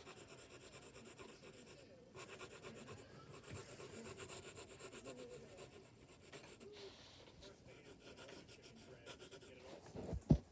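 Graphite pencil scratching on paper in rapid shading strokes. A single low thump comes near the end.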